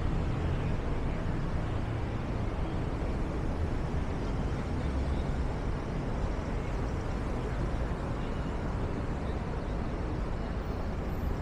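Steady city street noise: a low rumble of traffic with an even hiss over it.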